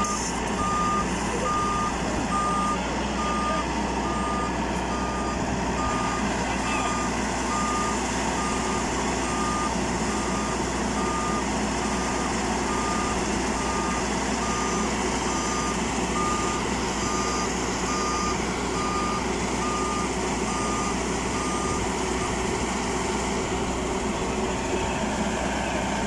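FMWorld rice combine harvester running steadily, with a regular electronic warning beep, about three every two seconds, that stops near the end.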